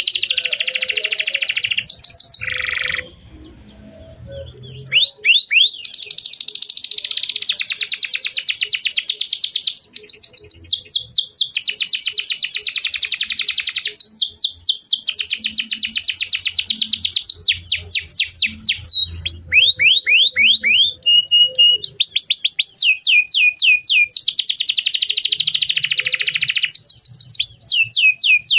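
Domestic canary singing a long, continuous song of fast repeated trills and down-slurred chirps, with a short break about three seconds in.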